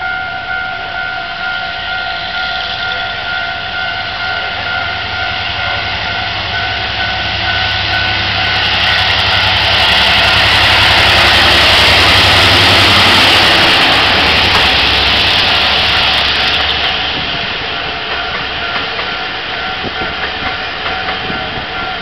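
A locomotive-hauled Taiwan Railway local train passing over a level crossing: its rumble builds about a third of the way in, is loudest around the middle as the locomotive goes by, then eases as the passenger coaches roll past. A steady two-tone crossing warning signal sounds throughout, its higher tone dropping out about a quarter of the way in.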